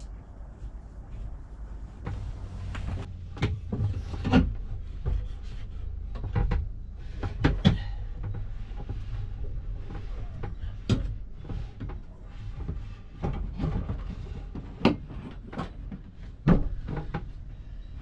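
Irregular knocks and clunks of hands-on installation work on a diesel heater, over a steady low rumble.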